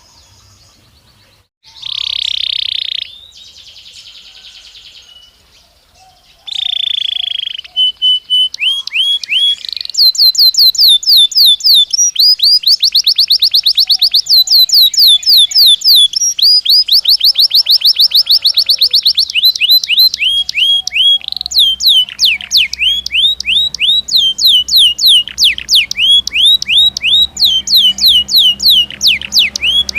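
Belgian canary singing: long fast trills of rapidly repeated downward-sweeping notes, changing from one rolling phrase to the next, after two short harsher bursts in the first few seconds. A faint low hum runs underneath from about two-thirds of the way in.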